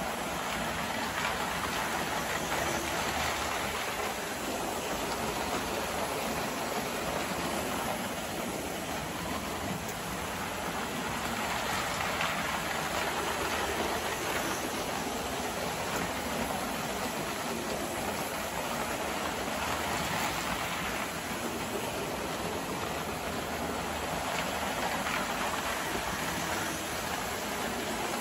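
Electric toy trains, ALCO diesel models among them, running around a model railway layout: a steady rattle and rumble of wheels on track and motors. It swells slightly about halfway through as a locomotive passes close by.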